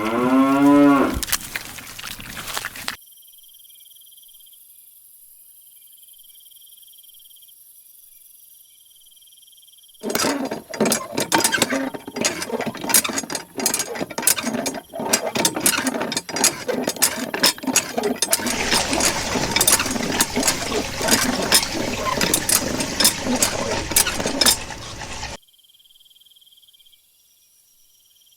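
A bleat at the very start, then steady cricket chirping. About ten seconds in, loud dense clicking and crackling sets in for some fifteen seconds before the crickets alone return.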